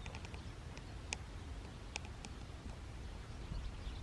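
Small birds giving a few short high chirps, a quick cluster at first and then single calls about a second and two seconds in, over a low steady rumble of wind on the microphone.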